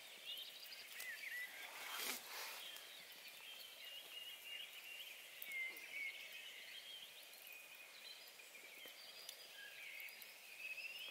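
Faint birdsong: several birds singing short chirps and warbling phrases over a soft background hiss. A brief rustle comes about two seconds in.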